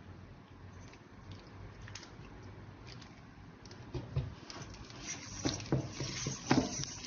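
Wire balloon whisk beating a thick flour-and-milk crepe batter in a stainless steel bowl to break up the lumps: faint soft patter at first, then from about four seconds in a louder run of rapid clicks and scrapes of the wires against the bowl.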